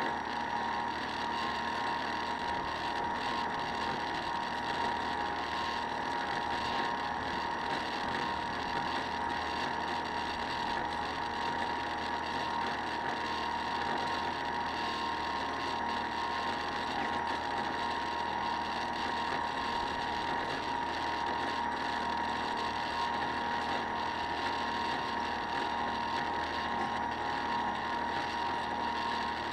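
Model boat's motor running steadily, a constant whine that holds the same pitch throughout.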